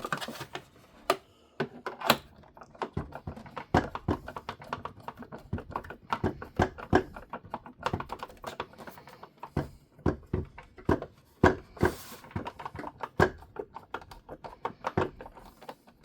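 Hard plastic parts of a toy Batmobile being handled and pressed together: rapid, irregular clicks and taps, with a few louder snaps, as a part that won't seat is worked at.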